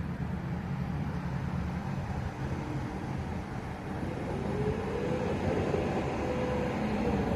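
Heavy machinery engine running steadily, with a whine that rises and falls in pitch from about four seconds in.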